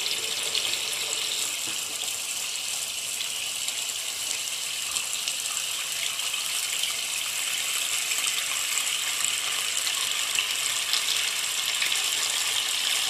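Tap water running steadily into a water-filled basin, an even hiss of falling water.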